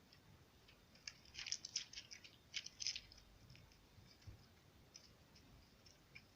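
Slime being squeezed and mixed by hand: faint sticky clicks and small crackling pops, thickest between about one and three seconds in, then scattered single clicks.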